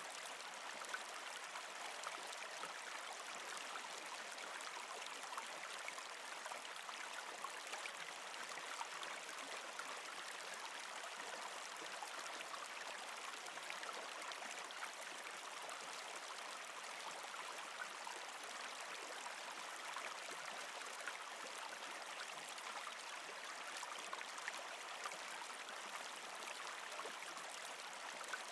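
A small stream running steadily between rock banks: an even rush of flowing water with faint scattered ticks.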